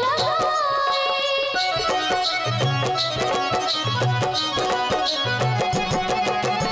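Bhojpuri Chhath folk song music with no words, an instrumental passage: a melodic line over a steady drum beat and bass.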